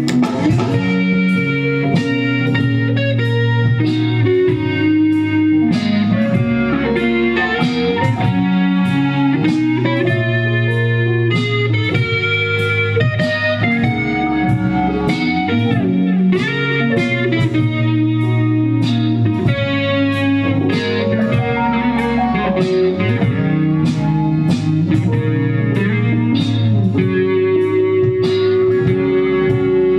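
Band playing live, with electric guitar leading over bass and a steady drumbeat.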